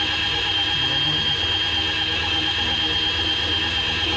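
Shimano Plays 3000 electric fishing reel's motor running steadily as it winds line onto the spool under hand tension, a steady high whine over a low hum.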